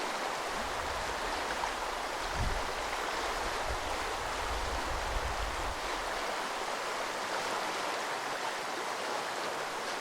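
Clear mountain creek rushing steadily over lava rocks. A low wind rumble on the microphone fades out about six seconds in.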